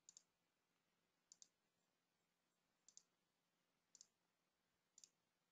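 Faint computer mouse clicks: five quick double-clicks about a second apart, with near silence between them.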